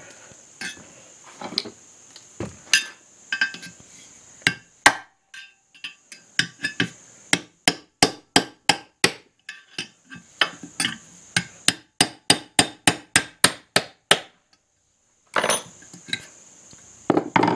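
Hammer striking a punch to drive the old crankshaft oil seal out of a Briggs & Stratton engine's aluminium crankcase cover: a series of sharp metallic taps, scattered at first, then a steady run of about three blows a second through the middle, and a few more near the end.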